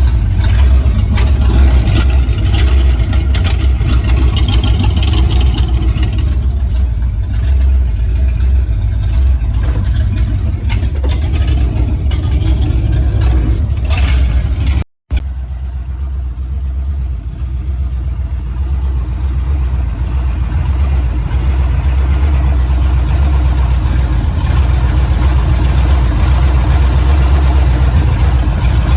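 A car engine running steadily, a loud low rumble with some clicks over it; the sound drops out for a moment about halfway through, then the rumble continues.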